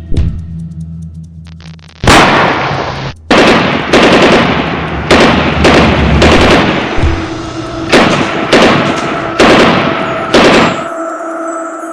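Dubbed gunfire sound effects: about nine loud single shots, irregularly spaced, each with a ringing tail.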